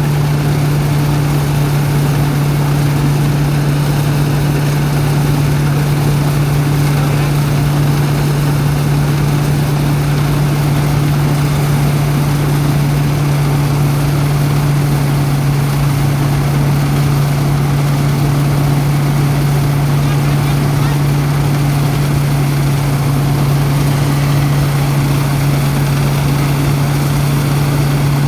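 Rice-threshing machine running steadily with a loud, even drone that does not change. Its owner says the machine sounds as if it is breaking down, though it keeps working.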